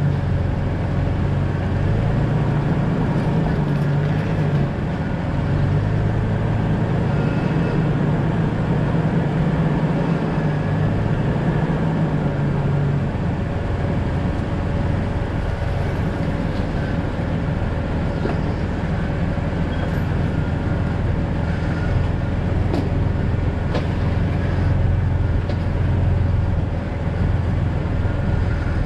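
2000 Jeep Cherokee XJ driving, its engine and road noise running steadily, with the engine pitch rising and falling a little and a few faint clicks.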